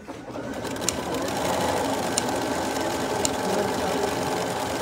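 Bernina B 335 domestic sewing machine starting up and stitching fabric, settling into a steady, fast run after about a second.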